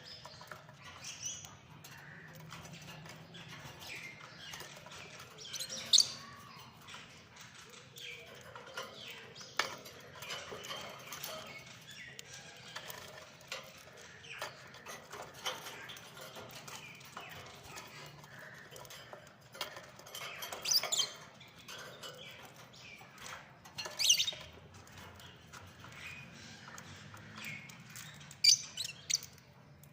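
Lovebirds chattering softly, broken by a handful of loud, shrill calls spread through the stretch, over a faint low steady hum.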